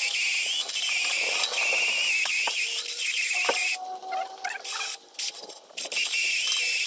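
Drill-driven wire brush spinning inside the rusty steel bushing eye of a rear axle, scouring out the rust with a high-pitched whine and scraping. It runs in two bursts: one of nearly four seconds, then, after a pause of about two seconds with a few clicks, another of about two seconds.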